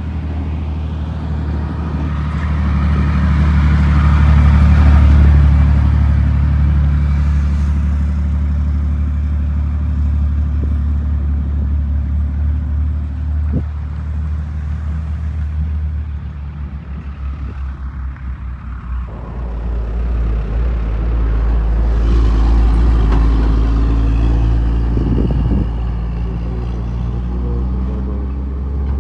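Heavy dump truck's diesel engine running as it drives, a steady low drone that swells and eases. Partway through it drops and goes uneven for a few seconds before pulling strongly again.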